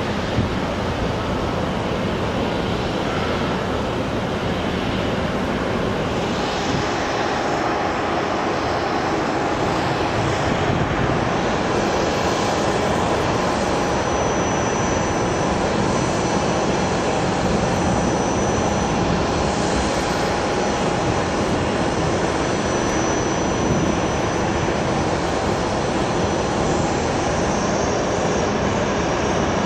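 Jet airliner engines running steadily: an even rush of noise with a faint high whine on top.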